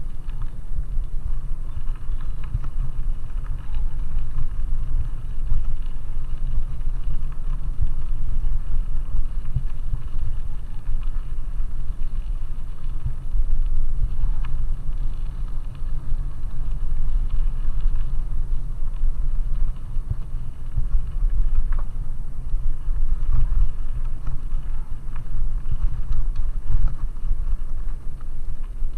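Bicycle tyres rolling over a loose gravel track, under a steady low rumble of wind buffeting a helmet-mounted camera's microphone, with small scattered ticks of grit.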